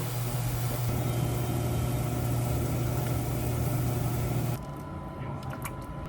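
A motor running steadily with a hiss over a low hum, cutting off abruptly about four and a half seconds in; a few light clicks follow.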